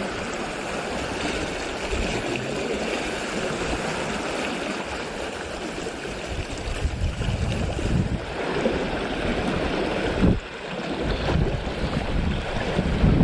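Wind gusting on the microphone over the steady wash of sea waves, with a brief lull about ten seconds in.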